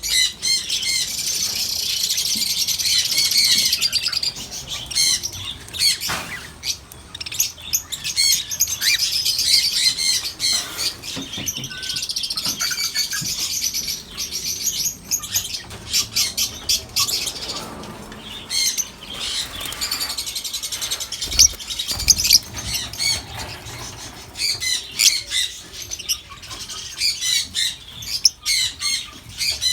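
Many small birds chirping at once, a dense, continuous high-pitched twittering with overlapping calls.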